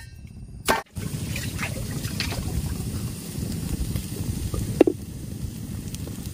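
Water trickling and lapping as a steady noise, with a few faint clicks.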